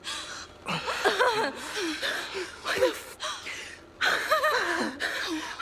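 A few people gasping and giggling in breathy bursts. The first stretch runs from about half a second to three and a half seconds in, and a second starts at about four seconds.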